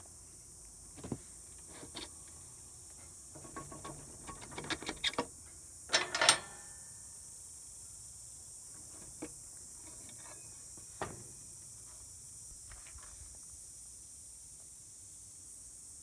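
Hand tools working the front axle of a Yamaha Vino 125 scooter: scattered metallic clicks and clanks, a quick run of clicks about four to five seconds in and the loudest clatter around six seconds, over a steady high hiss.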